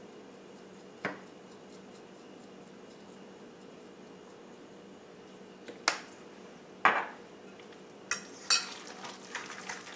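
Utensil clinks and scrapes against a glass mixing bowl while a jackfruit salad is seasoned and stirred. A few sharp single knocks come first, the loudest about seven seconds in, then a quick run of clinks and scrapes from about eight seconds in, over a faint steady hum.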